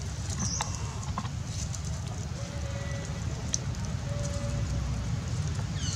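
Outdoor ambience: a steady low rumble with a few faint, short, high-pitched chirps and some soft clicks scattered through.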